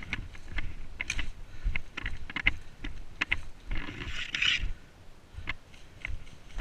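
Irregular clicks and knocks from a player moving on foot with gear and a rifle, and a brief rustle about four seconds in, like brushing through grass or foliage.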